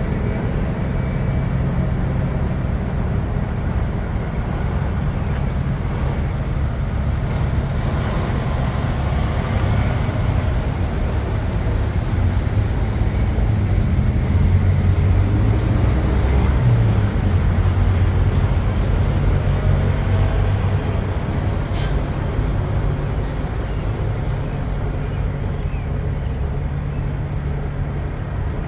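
Semi truck's diesel engine running steadily with a deep low rumble, with a single sharp click about three quarters of the way through.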